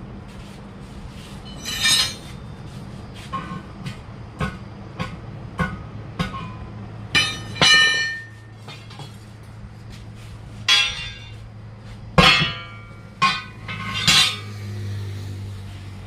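Metal-on-metal hammer strikes that ring, about six loud blows with lighter taps between them, typical of hammering on a steel truck wheel rim during a tyre change. A steady low hum runs underneath.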